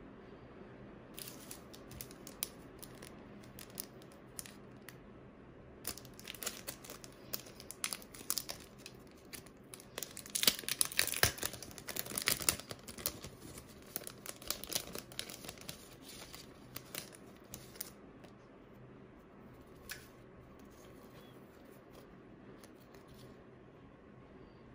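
Thin clear plastic packaging crinkling and tearing as it is handled and opened. It starts as scattered crackles and ticks, turns to dense crinkling that is loudest in the middle, then thins to occasional rustles near the end.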